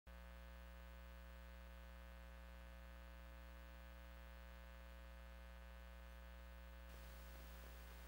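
Near silence with a faint, steady mains hum and its overtones. A soft hiss comes in about seven seconds in.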